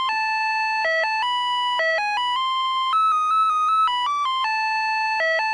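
Telephone on-hold music: a simple electronic melody of plain, beep-like single notes stepping up and down in pitch, with the short phrase starting over about three seconds in. It means the line is on hold while the call is transferred.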